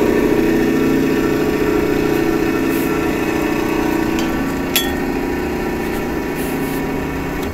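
Large belt-driven exhaust fan's three-phase electric motor running with a steady mechanical hum that eases off slightly, and a brief click about five seconds in.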